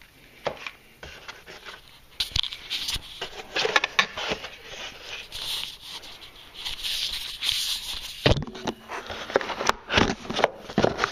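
Cardboard box and packaging insert being handled: irregular rustling and scraping with scattered knocks and clicks, louder from about two seconds in.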